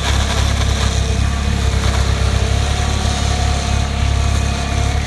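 Excavator's diesel engine running steadily under load with a deep low drone, a faint steady whine above it.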